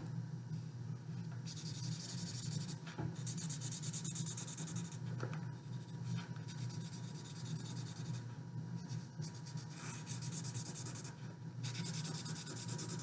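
Sharpie marker scribbling on watercolour paper to fill in a painted pupil, in bursts of quick back-and-forth strokes lasting a second or two, with short pauses between them.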